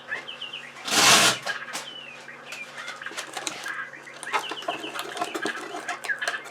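Songbirds chirping in the background, with scattered small clicks of handling. About a second in, a brief rasp of adhesive tape being pulled off the roll, the loudest sound.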